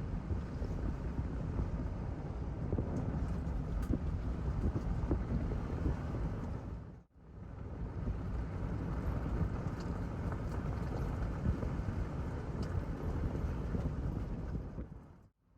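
Toyota 4Runner driving on a dirt road: a steady rumble of tyres and engine with some wind noise. It cuts out briefly about seven seconds in and again near the end.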